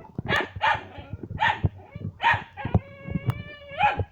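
A dog barking repeatedly, about one bark every half second, with a steady held call lasting about a second near the middle.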